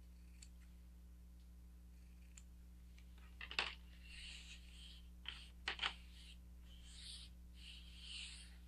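A few faint snips of scissors trimming fabric, then sharp clacks on the tabletop about three and a half and six seconds in, with cloth rustling and sliding as the sewn diaper is spread and smoothed flat on a plastic table.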